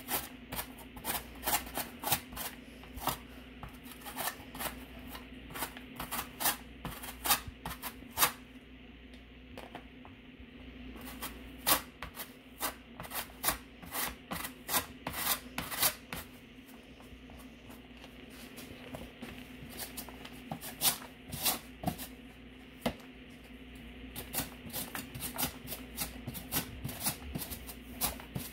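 Peeled raw potato grated on the coarse holes of a flat metal hand grater: runs of quick rasping strokes, stopping briefly twice.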